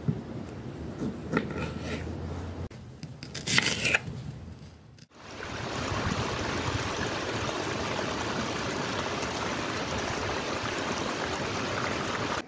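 A knife cutting small citrus fruits on a wooden board, with a few short scraping cuts, the loudest near four seconds in. After an abrupt break at about five seconds, a small stream splashes down over rocks in a steady rush of water.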